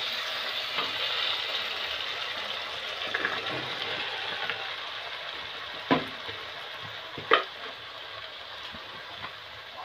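Onion-tomato masala frying in oil in a steel kadai, a steady sizzle that slowly quietens as sliced button mushrooms are tipped in. A few sharp knocks against the pan, the loudest two about six and seven seconds in.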